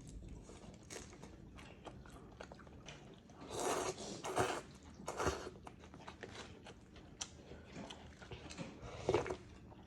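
A person chewing food, with a few louder noisy bursts about three and a half seconds in, at about five seconds and near the end.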